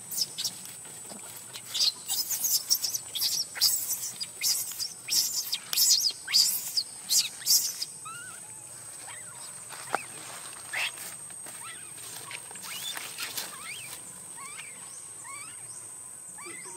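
Newborn macaque crying: short, loud, high-pitched squeals come about twice a second for the first eight seconds, then give way to softer rising-and-falling whimpers.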